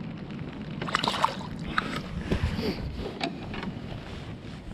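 Handling noises aboard a fishing kayak on the water: scattered clicks and knocks against the hull and gear over a steady wash of water noise.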